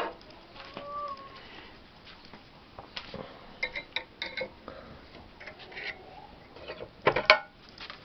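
Scattered metallic clinks and knocks of metal parts being handled, some briefly ringing, with a louder cluster of knocks about seven seconds in.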